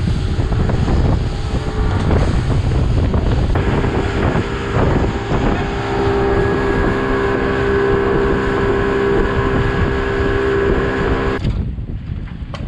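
Small fishing boat running fast across open water: wind buffeting the microphone and water rushing past the hull, joined about three or four seconds in by the steady, even drone of the outboard motor at cruising speed. Near the end the sound drops off sharply to a much quieter wash.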